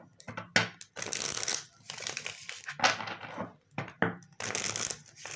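Tarot cards being shuffled and handled: a series of short papery rustles, some with a sharp edge, at an uneven pace.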